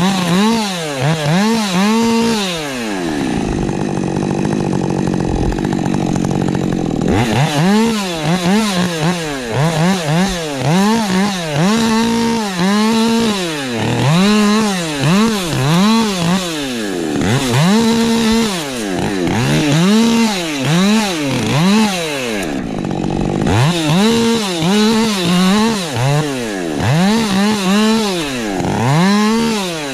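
Husqvarna 550 XP Mark II two-stroke chainsaw revved over and over, its pitch rising and falling with each burst of throttle. It settles to a steadier, lower running speed twice, about three seconds in and again around twenty-three seconds.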